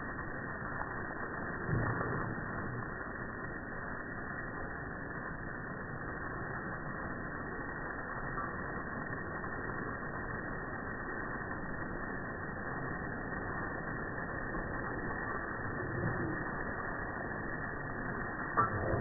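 Garden hose spray hissing steadily as it splashes onto a dog and the grass, dull and muffled, with a few soft thumps about two seconds in and near the end.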